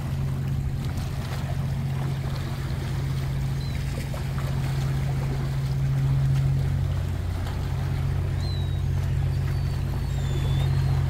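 Steady low drone of a boat engine running in the harbour, with a few faint, short high chirps above it.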